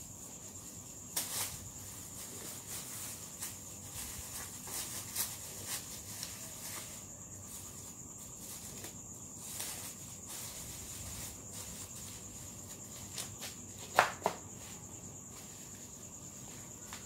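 A steady high-pitched insect trill, with scattered light clicks and plastic rustles from handling a plastic glove, and flip-flop steps on a concrete floor; a sharp click about 14 seconds in.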